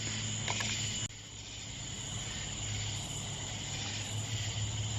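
Steady chorus of night insects: an even, high-pitched trilling that keeps on without a break, with a low steady hum beneath it.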